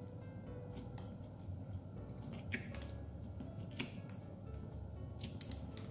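Fingers pressing and poking glossy blue slime with small pink beads in a plastic tub: faint, with about half a dozen small sharp clicks scattered through.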